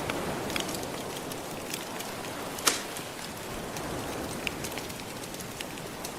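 Wood fire crackling with scattered small pops and one sharp, loud pop about two and a half seconds in, over a steady hiss of gentle surf.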